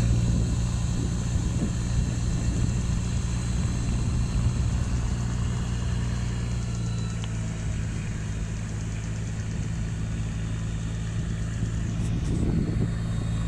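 Tour boat's engine running steadily at cruising speed, an even low hum, with a hiss of wind and water from the boat's movement.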